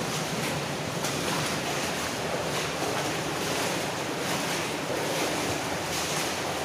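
Steady rushing of water running through a brick-lined culvert, echoing in the tunnel, with faint regular steps.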